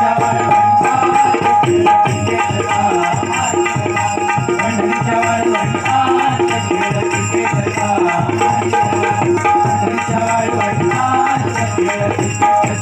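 Instrumental interlude of a Marathi bhajan: a hand drum plays a fast, steady rhythm under sustained harmonium notes.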